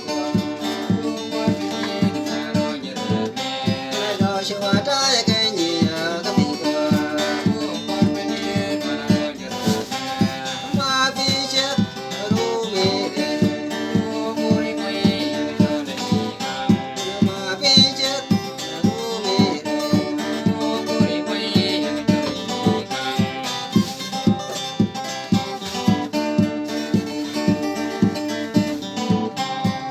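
A song: acoustic guitar strummed in a steady rhythm, with a singing voice over it.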